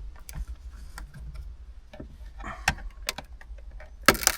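Scattered small clicks and taps of plastic trim being handled on a car sun visor's light housing, with a louder rattle of clicks near the end.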